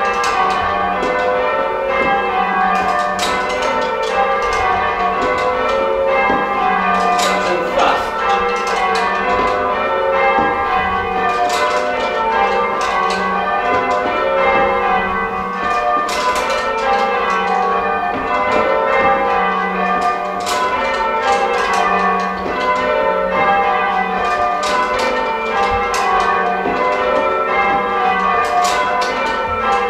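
Church tower bells rung full-circle by a band of ringers pulling the bell ropes in change ringing: a continuous, even stream of struck bells, each strike ringing on into the next.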